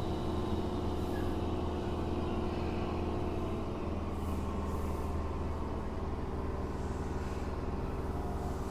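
Running sound heard inside a Tokyo Metro 7000 series armature-chopper electric train car: a steady rumble of wheels and motors with several steady whining tones. This car is known for an unusual light 'jet sound' from its drive.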